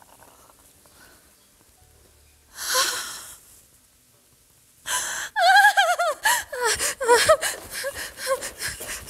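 A woman's excited vocal outburst: a breathy gasp about two and a half seconds in, then from about five seconds a run of loud, high, wavering squeals and cries.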